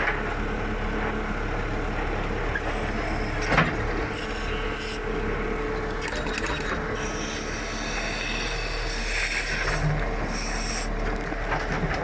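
JCB 3CX backhoe loader's diesel engine running while the backhoe arm is worked to dig, with a sharp knock about three and a half seconds in and a high squeal from the moving arm from the middle toward the end.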